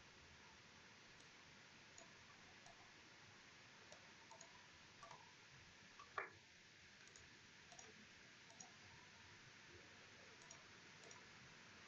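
Near silence with a faint hiss, broken by a few faint scattered computer mouse clicks and one louder click about six seconds in.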